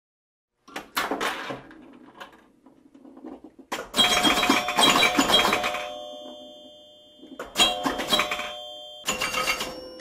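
A bell ringing in several bursts with some clatter, about a second in, around four to six seconds in, and twice near the end; each ring lingers and fades.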